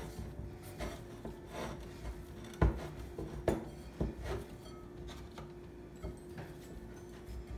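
Soft festival dough being mixed in a bowl: rubbing and scraping with a few knocks against the bowl, the sharpest about two and a half to four seconds in.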